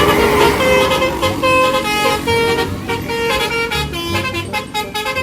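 A bus's multi-tone 'telolet' musical horn, a Basuri-type horn, playing a quick tune of short notes at changing pitches.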